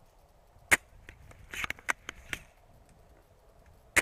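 Two sharp shots from a VSR-10 spring bolt-action airsoft sniper rifle, one about a second in and one at the very end, with a quick run of mechanical clicks between them as the bolt is worked.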